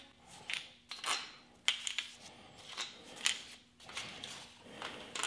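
Scattered light metallic clicks and clinks as Chevy 350 rocker arms and their nuts are lifted off the studs by hand and gathered together in the palm.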